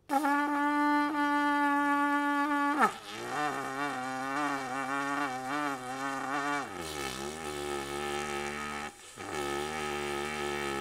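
Trumpet played as mouthpiece and lead pipe, with the main tuning slide out, in a slow long-tone warm-up. A steady held note for about three seconds, then a lower, wavering note. It then slides down into a low, buzzy note, breaks briefly near the end, and comes back.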